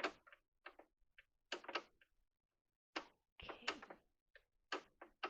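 Faint, irregular clicks from the controls of a domestic sewing machine being worked, as its stitch selector is switched to a new setting.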